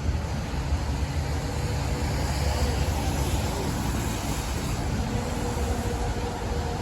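Steady low rumble with a hiss, even throughout, with no sharp cracks or bangs.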